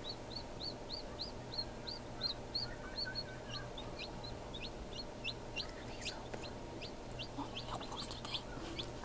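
Newly hatched chicken chick peeping: a steady run of short, high peeps, about three to four a second. After about three seconds the peeps become sharper and slide downward in pitch, over a steady low hum.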